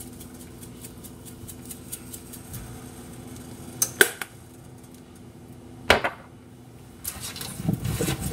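Two sharp clicks about two seconds apart over a low steady background hum, then from about seven seconds in the rustle and knocking of raw potato pieces being picked up and moved by hand on a metal sheet pan.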